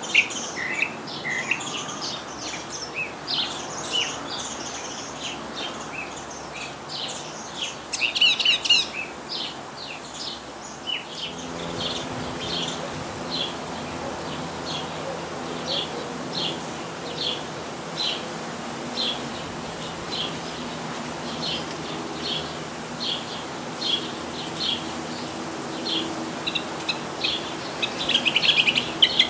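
Northern mockingbird singing: varied, rapidly repeated chirped phrases for the first ten seconds, then a long run of short single notes about once a second, breaking into a fast, dense stretch of song near the end. A faint steady low hum lies underneath in the second half.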